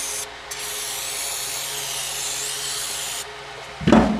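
Aerosol paint stripper spraying onto a cast-iron lathe steady rest: a short hiss, then a long spray of about three seconds. Near the end comes a loud clunk as the heavy part is set down on the bench.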